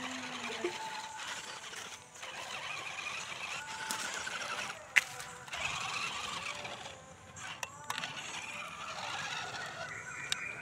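The small electric motor and gearbox of an RC rock crawler whining as it pulls a loaded trailer through muddy puddle water, in spells that rise in pitch and pause briefly a few times. A sharp click comes about five seconds in.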